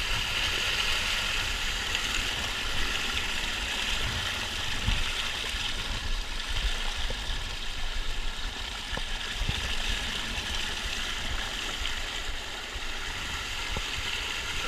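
Steady rush of river water pouring over a small waterfall in the Virgin River, with a few low bumps along the way and a sharp knock at the very end.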